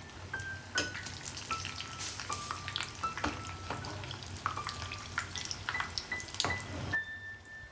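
Food sizzling as it fries in a pan, with frequent clicks and scrapes of a utensil against the pan. The sizzle cuts off about seven seconds in, while a soft melody of held notes plays behind it.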